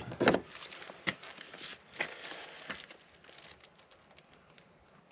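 Crinkling and rustling of a HotHands hand-warmer packet being opened and handled, with sharp crackles in the first three seconds that thin out to faint handling noise.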